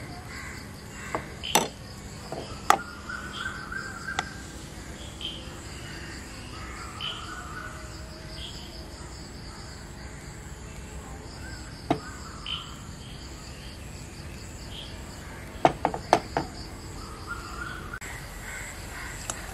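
Quiet background of birds calling now and then over a steady, high insect drone, broken by a few sharp clicks of kitchen utensils, a cluster of them near the end.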